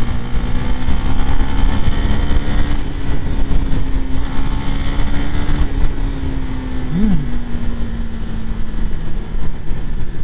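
Wind rushing over a helmet-mounted GoPro while riding a Honda RS150 underbone motorcycle, its single-cylinder engine running steadily at speed. The engine's pitch creeps up over the first half and then eases off.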